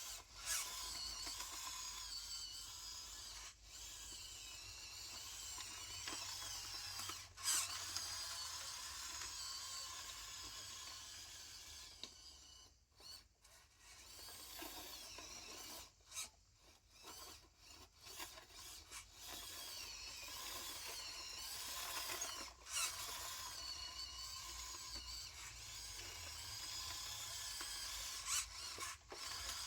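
A small electric motor whining at a wavering pitch, running in long stretches with a few brief stops and clicks.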